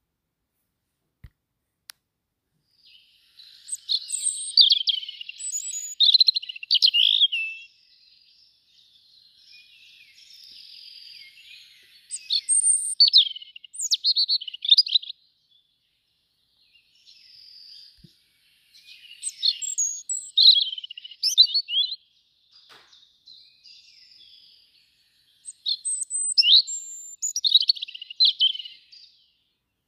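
European robin singing: high, thin, warbling phrases a few seconds long, in four bursts separated by short pauses.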